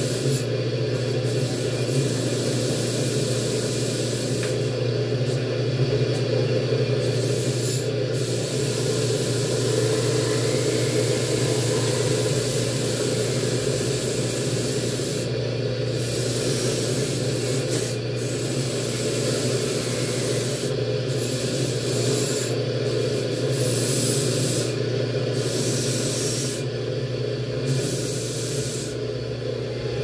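Steady rubbing as a part of an electric fan is scrubbed clean, the scrubbing stopping briefly several times, over a steady low hum.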